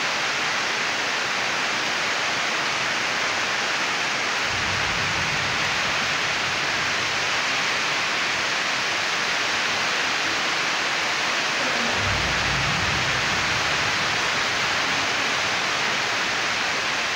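A steady, even hiss that holds at one level throughout, with two spells of low rumble about four and twelve seconds in.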